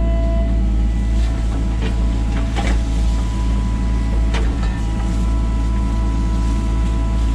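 Sany SY35U mini excavator's diesel engine running steadily as the boom and bucket work the soil, with a few short sharp knocks.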